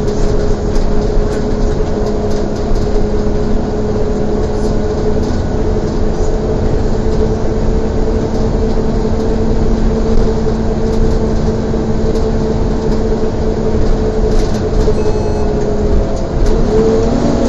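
Volvo B7TL double-decker bus running under way: a steady vacuum-cleaner-like whine, the "hoover" sound, over engine and road rumble. The whine shifts in pitch near the end.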